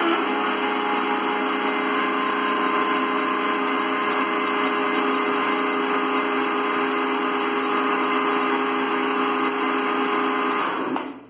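Countertop electric blender running steadily, mixing a liquid cake batter of milk, oil and eggs. It is switched off near the end and winds down.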